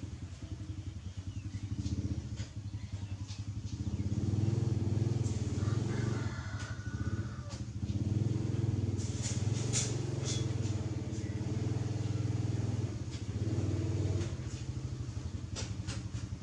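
An engine running steadily at idle, with a few faint clicks over it.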